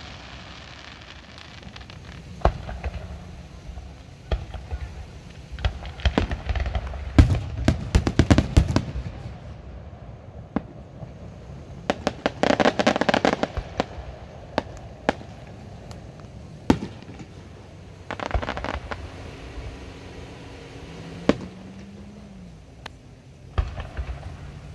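Fireworks going off: single sharp bangs spaced a few seconds apart, with rapid strings of crackling reports around eight seconds in, thirteen seconds in and again near nineteen seconds.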